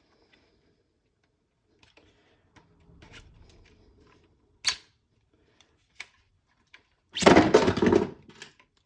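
Hard plastic parts of a 3D-printed airsoft stock being handled, with a single sharp click near the middle. A loud, rough scraping rattle lasting about a second comes near the end, as the stiff, unoiled stock is worked along its rods.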